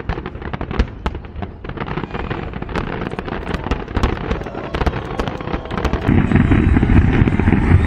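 Fireworks display: a dense stream of crackling pops and bangs over a low rumble, growing louder and thicker about six seconds in.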